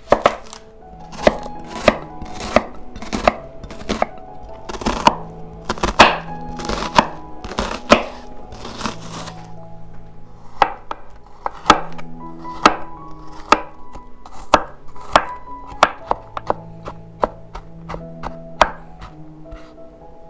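Knife chopping food on a cutting board: a steady run of sharp strokes, about one to two a second, over background music.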